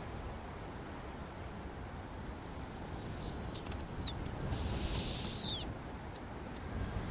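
Two high, falling screech calls from a snowy owl, about a second apart, the second one hissier, over a steady low wind rumble.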